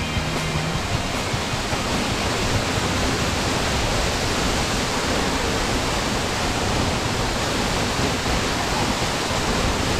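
Mountain waterfall pouring down a rock face onto rocks: a steady, even rush of falling water.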